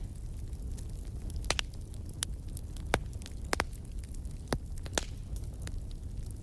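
Wood fire crackling in a fireplace: sharp, irregular snaps and pops, about eight of them, over a steady low rumble of the burning fire.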